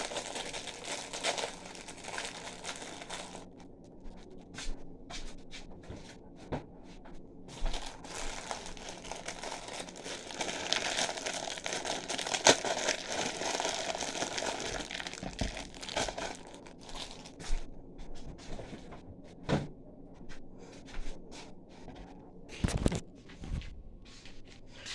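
Packaging crinkling and crackling as it is handled while food is being prepared, with scattered light clicks and knocks.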